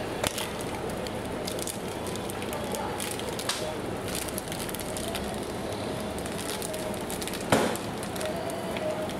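Plastic food packaging crinkling and crackling in gloved hands, with a few sharp clicks, the loudest about three-quarters of the way through, over a steady background hiss.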